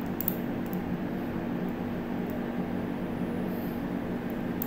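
Steady low electrical hum and room noise, with a few faint clicks.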